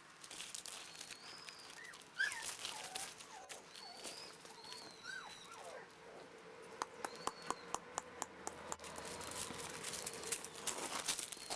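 Puppies whimpering and squeaking in short high-pitched whines that rise and fall, with a quick run of sharp clicks around the middle.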